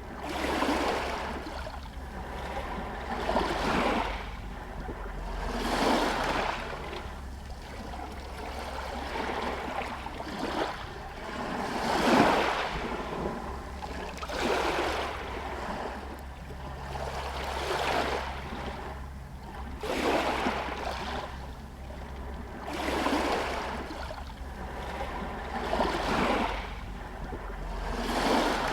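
Small Adriatic sea waves washing against a pier and shore stones, a soft splash every two to three seconds, the biggest about twelve seconds in, over a steady low rumble.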